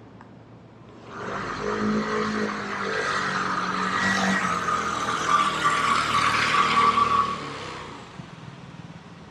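A motor vehicle passing close by: it comes up about a second in, runs loud for several seconds with a steady whine over the road noise, and fades away near the end.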